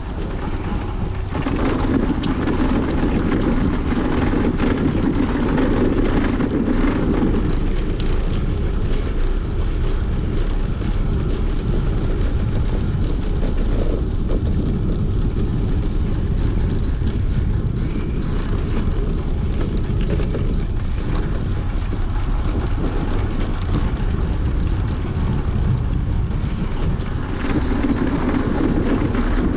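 Wind rushing over an action camera's microphone while riding a bicycle, a steady low rumble, with a louder humming stretch a couple of seconds in and again near the end.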